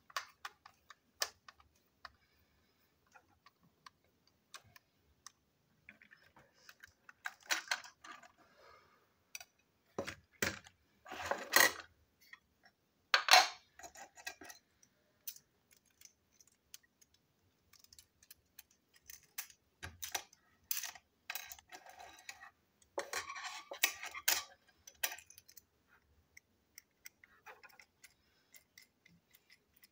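A small screwdriver working the screws of a toy train engine and hands handling its parts: scattered clicks and taps, with short bursts of rattling and scraping, the loudest near the middle as the wheeled chassis comes off and the parts are set down on the table.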